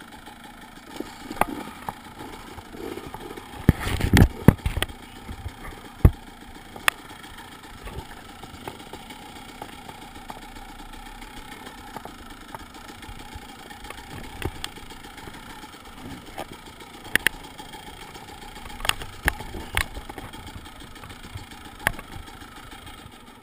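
Off-road enduro motorcycle engine running steadily at low revs, with scattered sharp knocks and clatter from the bike on rough ground, loudest about four seconds in.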